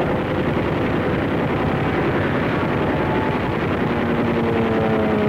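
Aircraft engine sound on an old film soundtrack: a loud, steady, dense drone, with a rising engine tone coming in near the end.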